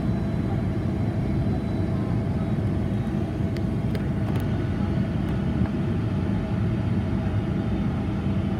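Steady engine and airflow roar inside the passenger cabin of a Boeing 757-200 descending to land. A few faint ticks come about four seconds in.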